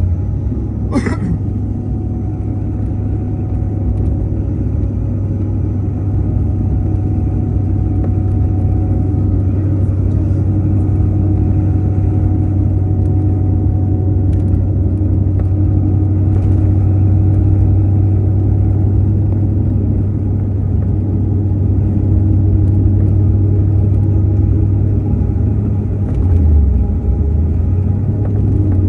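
A car driving, with a steady low rumble of engine and road noise. There is a short sharp sound with a falling sweep about a second in, and the low tone shifts briefly near the end.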